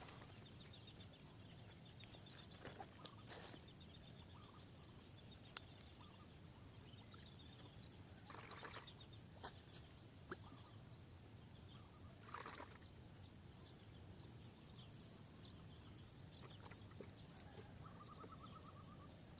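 Faint outdoor ambience by open water: a steady high hiss with scattered distant bird chirps and a short trill near the end, broken by a few single light clicks.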